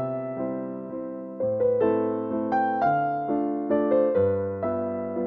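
Background music: a slow, gentle piano tune with a melody of struck notes over sustained bass notes.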